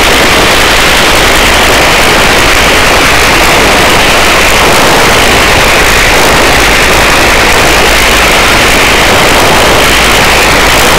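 Helicopter hovering with its cabin door open: a loud, steady wash of rotor and engine noise heard from inside the cabin.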